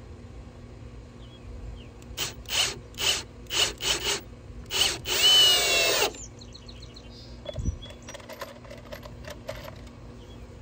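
Kobalt cordless drill driving a wood screw into a weathered wooden picket: several short trigger bursts, then one sustained run of about a second with a slightly rising motor whine that cuts off suddenly. A few faint clicks follow.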